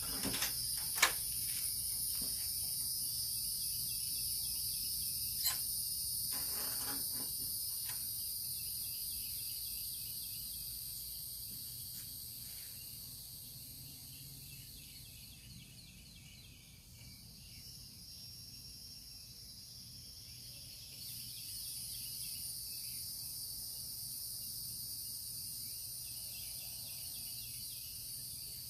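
Steady high-pitched insect chorus that fades somewhat in the middle and swells again later, with a couple of sharp clicks in the first few seconds.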